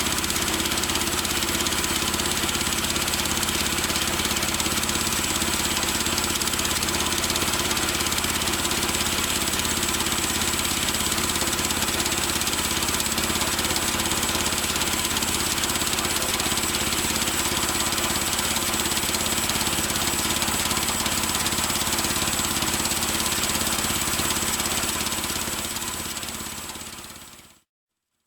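Predator small gasoline engine of a band sawmill running steadily at an even speed, fading out near the end.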